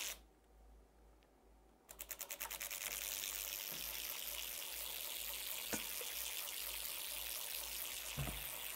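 Electromagnetic flip-dot display clattering as its pixels flip while it plots a signal: a quick run of separate ticks about two seconds in that speeds up into a steady rapid rattle, stopping just before the end. A single short click right at the start.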